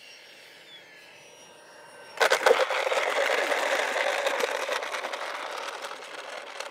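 XFly T-7A Red Hawk's 64mm electric ducted fan whining faintly with gliding pitch, then about two seconds in a sudden loud rush as the jet rolls close by on the runway, its fixed-gear wheels clattering over the asphalt, slowly fading.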